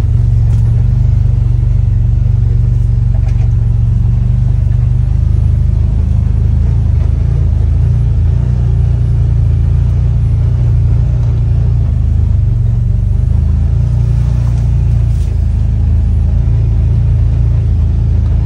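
Side-by-side utility vehicle's engine running steadily under way, heard from inside the cab as an even, low drone.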